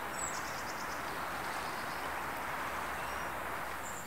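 Steady outdoor hiss with a few faint, high bird chirps: a short trill just after the start and another near the end.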